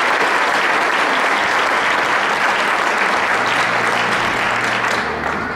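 Audience applauding steadily in a gymnasium, dying down near the end.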